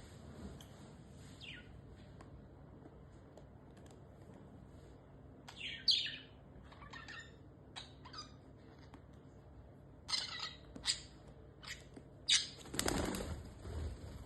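Pet parrot chirping: scattered short calls, one falling call about a second and a half in, a quick cluster near the middle, then louder, more frequent chirps from about ten seconds on. A short rustling burst, the loudest sound, comes near the end.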